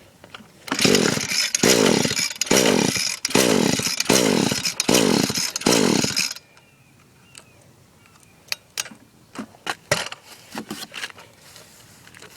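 Echo SRM-210 string trimmer's two-stroke engine being pull-started: about seven quick yanks of the recoil starter, each a short burst of the engine turning over with a rising pitch, without it catching. After the pulls stop come scattered clicks and knocks of handling.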